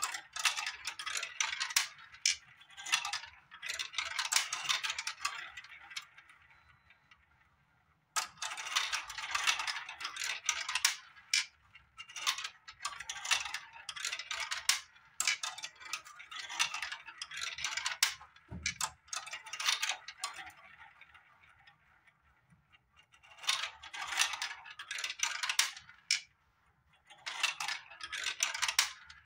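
Small balls rolling and clattering down a plastic building-block marble run, clicking along its tracks and spinning through its spiral funnels. The balls go down in several runs that each die away, with short quiet pauses between runs.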